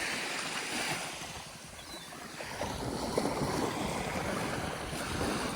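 Steady wash of water lapping, with wind noise on the microphone.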